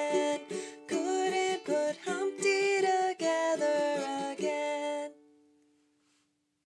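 Plucked-string instrument playing quick, rhythmic chords that stop about five seconds in, leaving a last note ringing out and fading away.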